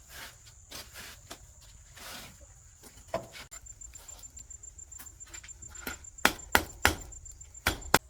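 Irregular sharp knocks and taps, with several louder strikes in the last two seconds.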